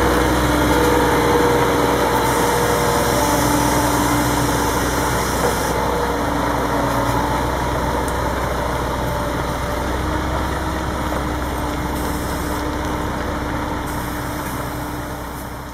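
Diesel engine of heavy harvest machinery running steadily, growing slowly fainter.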